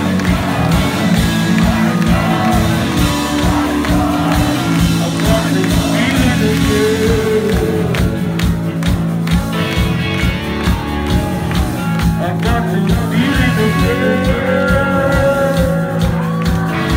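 Live rock band playing: electric guitar, bass and a steady drum beat, with a lead vocal sung into a microphone, heard from within the audience.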